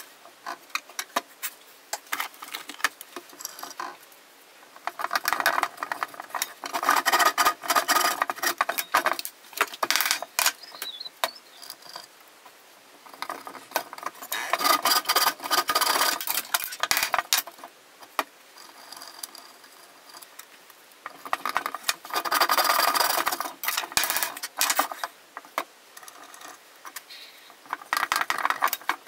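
Wooden dowels being pushed and twisted by hand into glued holes in a wooden box: repeated bursts of wood rubbing on wood, with sharp clicks and knocks between them.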